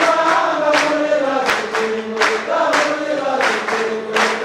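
A group of voices singing together, holding long notes, with hands clapping along in a rough beat.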